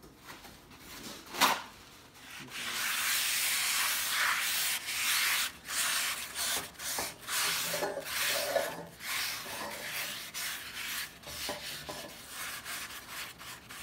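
Paper towel rubbing vegetable oil over the cooking surface of a cast iron skillet in uneven back-and-forth strokes, a scratchy scrubbing sound: oil being spread to season the pan. A single brief sharp sound about a second and a half in, before the rubbing starts.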